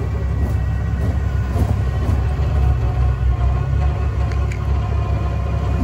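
An electric winch pulling a heavy truck out of a ditch under load: a faint steady motor whine over a steady low rumble of running vehicle engines.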